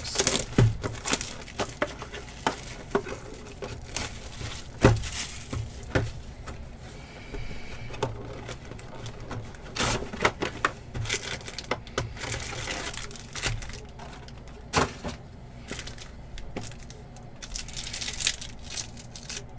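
A trading-card hobby box being opened and a foil card pack torn open by hand: crinkling, tearing and scattered sharp clicks and taps of cardboard and wrapper.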